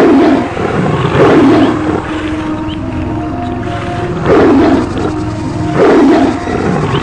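Four loud, deep animal roars, two close together at the start and two more in the second half, over a steady background of held tones, as in a wild-animal stampede sound effect.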